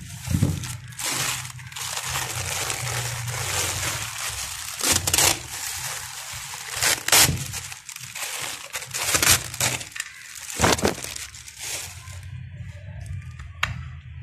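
Thin plastic sheet crinkling and rustling in irregular bursts as it is peeled off and handled, for about twelve seconds, then it goes quieter with a few faint crackles near the end. A steady low hum runs underneath.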